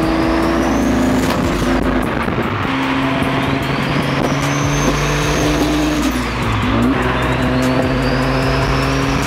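Turbocharged 3.2-litre V6 of an Acura NSX running at highway speed with road noise. The turbo whistle rises over a few seconds and then drops away, three times over, under a steady engine drone.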